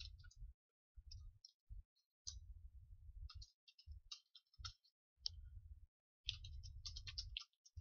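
Faint computer keyboard typing: irregular runs of key clicks with short pauses between them, busiest near the end.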